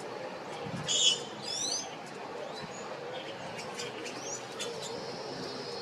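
Wild birds calling: a sharp call about a second in, then a couple of quick looping whistles, with a few softer calls and a short upward whistle later.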